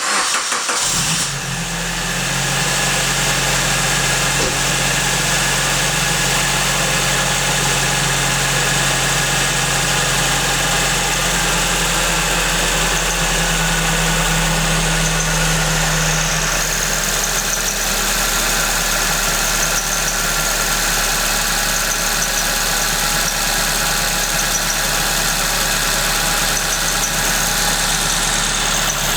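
Supercharged Suzuki Swift Sport ZC31S four-cylinder engine starting, then running at a fast cold idle whose pitch drops about halfway through. Over it, a steady squeak from the supercharger's V-belt at the main crank pulley.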